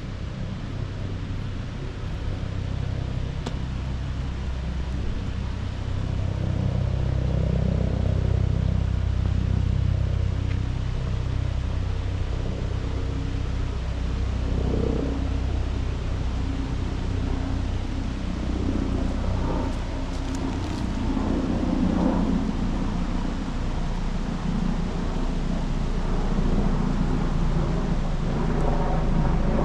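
Low, steady rumble of road traffic, swelling and easing slowly over several seconds.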